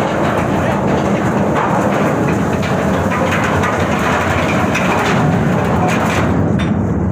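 Loud, steady rushing and rumbling noise on the open deck of a tugboat under way: wind buffeting the microphone over the vessel's running noise.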